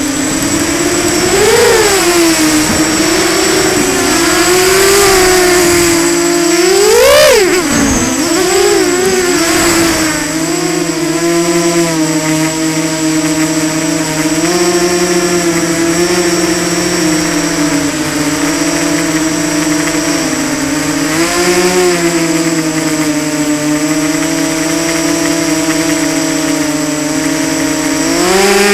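Motor and propeller of a small radio-controlled model aircraft, heard from a camera on board. A steady buzzing tone rises and falls with the throttle, surges sharply about seven seconds in, then holds steady.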